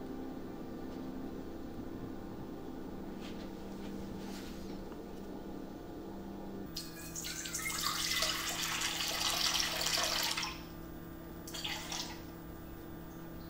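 Water being poured and splashing for about four seconds from the middle on, then a shorter pour near the end as water from a small measuring jug goes into a stand-mixer bowl, over a steady low hum.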